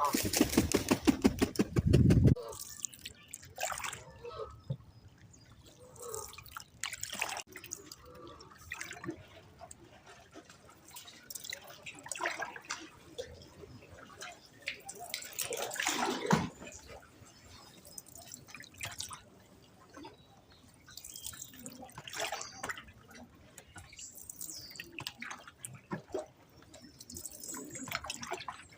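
Canoe paddle dipping into canal water, with irregular splashes and drips from the blade. The loudest part is a burst of rapid strokes in the first two seconds.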